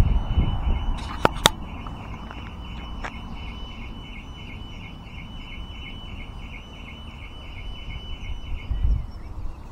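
Car alarm sounding: a steady high-pitched tone pulsing about three times a second, which cuts off about eight seconds in. Wind rumbles on the microphone, and there are two sharp clicks a little over a second in.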